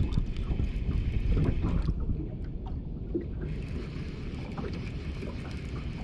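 Wind buffeting the microphone over water around a small boat, with faint scattered clicks as a baitcasting reel is wound in.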